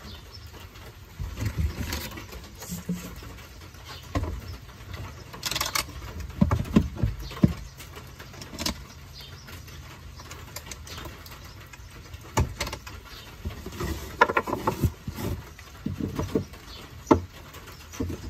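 Irregular knocks, clacks and short rattles of a 3/8-inch plywood table with aluminium edging being handled and fitted onto its hinges, which are held by cotter pins.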